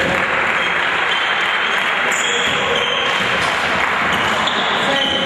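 Steady crowd noise in a gym during a basketball game, with sneakers squeaking on the court now and then.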